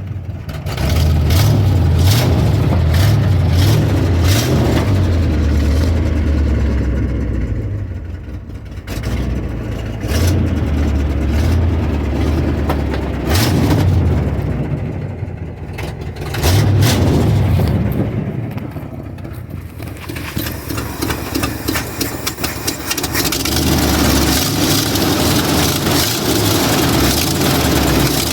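Ford F-350 truck engine running, revved up and dropped back several times, then settling into a steadier run near the end.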